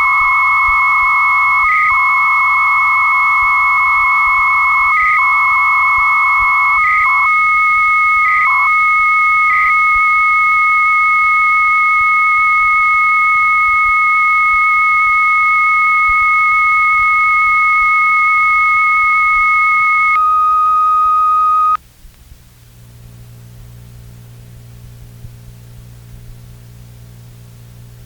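Two 300-baud modems talking over a telephone line: a warbling data tone with short breaks for the first several seconds, then two steady carrier whistles, one high and one lower. The high carrier cuts off about 20 seconds in and the lower one about two seconds later, dropping the connection. A low hum and hiss from the cassette recording of the line is left.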